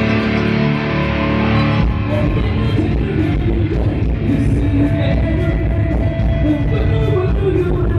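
Live rock band playing loud through the PA: held guitar chords, then about two seconds in the music changes abruptly, the drums come in harder, and a singer comes in.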